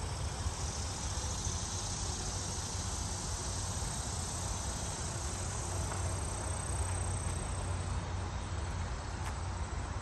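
Steady high-pitched chorus of insects from the trees and grass, over a continuous low rumble.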